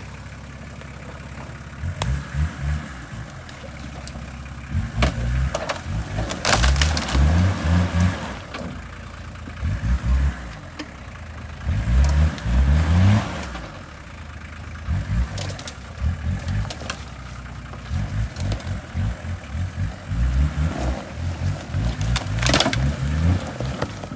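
Nissan off-road 4x4's engine revving in repeated bursts, the pitch climbing with each burst, as it crawls over logs and roots. A few sharp cracks and crunches of branches and debris under the tyres.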